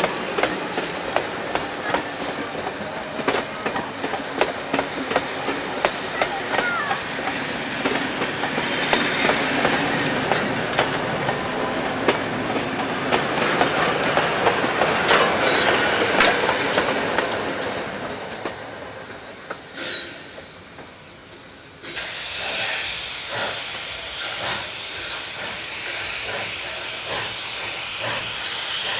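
Steam-hauled passenger carriages clattering past, their wheels clicking over the rail joints. About 14 s in, NSW steam locomotive 3237 (a C32 class 4-6-0) passes with a loud rush of exhaust and hissing steam, which fades away. After a sudden change about 22 s in, the locomotive is heard again with steam hissing as it approaches.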